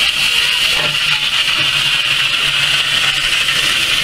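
Loud, steady hiss of steam escaping from a standing 1879 Beyer Peacock saddle tank steam locomotive.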